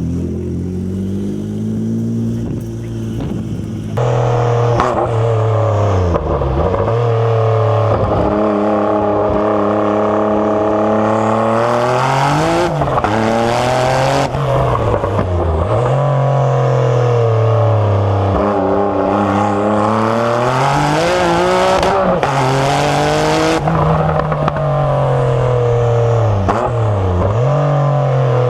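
Jaguar XJ220's twin-turbo V6, heard from inside the cabin, accelerating at full throttle through the gears: the engine note climbs, then drops sharply at each upshift, about six times. Around a third of the way in and again past the middle there are stretches of loud rushing hiss.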